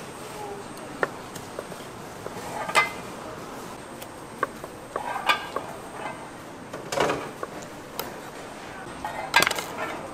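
Scattered knocks and clinks of dishes and kitchen utensils, a second or two apart, the loudest about three seconds in and near the end, over a steady background noise.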